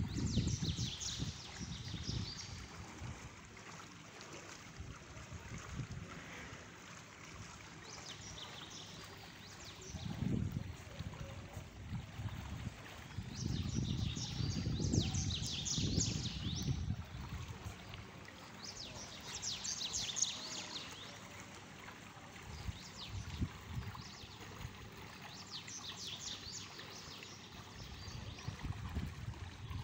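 Outdoor ambience: wind rumbling on the microphone in gusts, with bursts of high bird chirps every few seconds.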